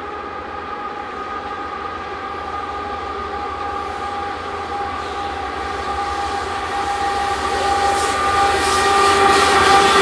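Union Pacific diesel locomotives at the head of a coal train approach and grow steadily louder, a steady drone of several tones over the rumble. About eight seconds in, quick clicks and rattling set in as the engines reach and pass.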